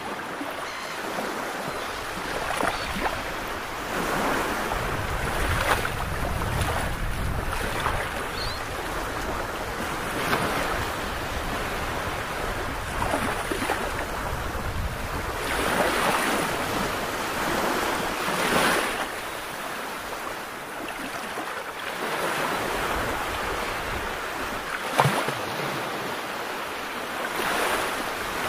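Sea waves washing, swelling and easing every few seconds, with wind buffeting the microphone.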